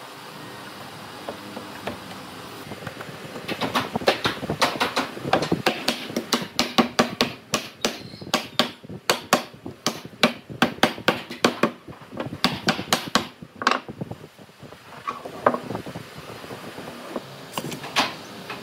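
A quick series of sharp knocks, about three or four a second, for roughly ten seconds. It stops and is followed by a few separate knocks near the end.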